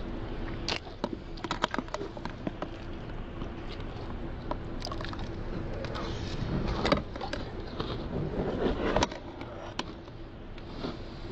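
A spoon clicking and scraping against a plastic container of cereal and milk as it is scooped, with chewing of the cereal between scoops; the sharpest clicks come about a second in and again around seven and nine seconds. A faint steady hum lies underneath.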